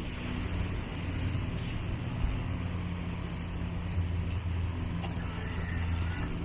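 Low, steady running hum of a slowly moving vehicle, with a rushing noise over it.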